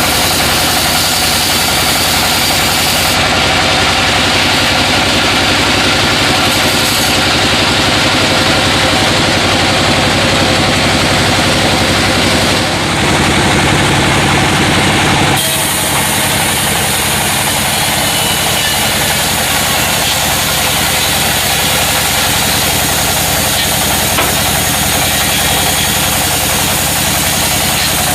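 Sawmill machinery running steadily, an engine-like drone under a dense hiss. The sound changes abruptly about fifteen seconds in.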